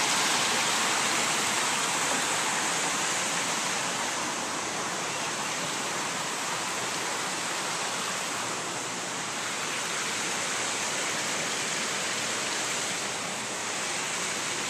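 Water splashing steadily over small stone weirs and cascades between garden pools, a constant rushing hiss.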